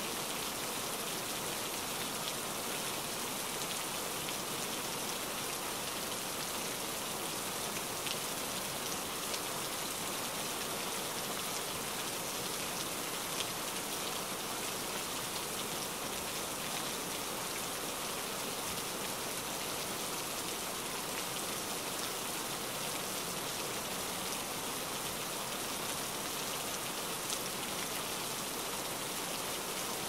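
A steady, even rain-like hiss with a few faint ticks.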